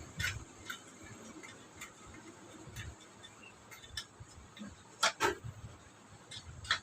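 Scattered light clicks and knocks of rice cooker parts being handled and fitted together during reassembly, with a sharper double knock about five seconds in.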